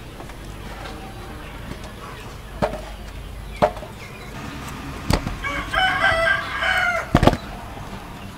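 A rooster crows once about five and a half seconds in, a call of about a second and a half. A few sharp knocks from knife work on melon chunks over a metal bowl come before and after it.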